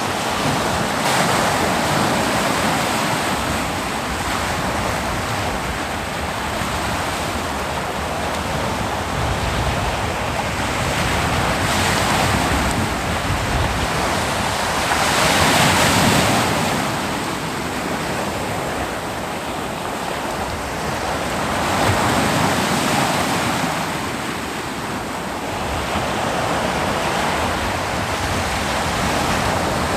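Ocean waves breaking and washing on a beach, a continuous surf rush that swells with each breaker every few seconds, the biggest about halfway through.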